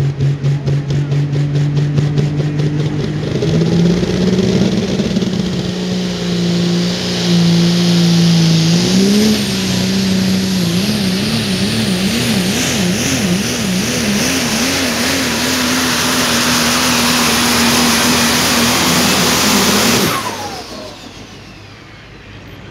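Super stock diesel 4x4 pulling truck under full throttle on a pull. The loud engine note climbs in steps and wavers up and down for several seconds before holding steady. About 20 seconds in it shuts off abruptly, leaving a falling whine as the turbochargers wind down.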